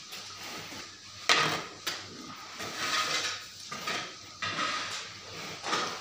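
Long-handled scraper dragged across a concrete cattle-shed floor in about five uneven scraping strokes, the loudest about a second in, as dung is cleared from the stalls.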